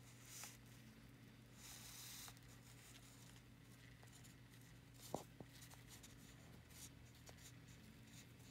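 Near silence over a low steady hum, with faint scratchy rustles and a sharp click about five seconds in, from a savannah monitor feeding on raw egg on a foam plate.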